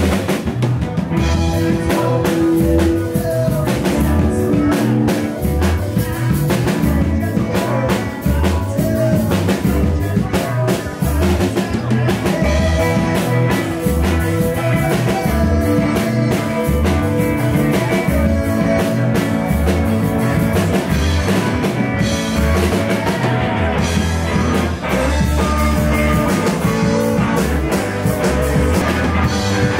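Live rock band playing: electric guitars and bass over a drum kit, with a moving bass line and regular drum hits.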